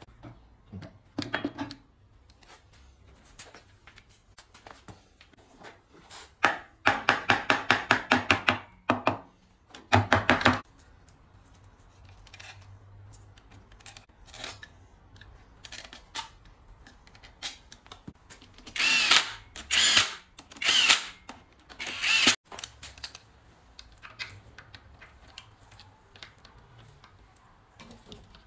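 Cordless power driver running in the valve-body bolts on an automatic transmission, in a few short bursts. The first is a run of rapid clicks about seven seconds in; the later ones, about twenty seconds in, have a whine that rises and falls. Quieter clinks of metal handling come in between.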